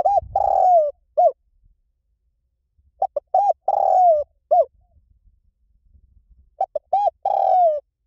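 Spotted dove cooing: three phrases about three seconds apart, each a few short coos, then a longer coo that falls in pitch, then a short closing coo.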